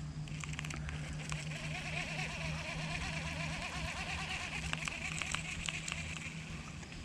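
Baitcasting reel being cranked to wind in line: a steady whirr lasting about six seconds, with small clicks over it.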